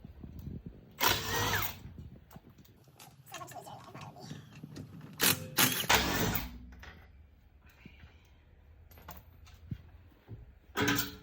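Three short bursts of loud, harsh mechanical noise with fainter clatter in between, from work on loosening the car's wheel bolts.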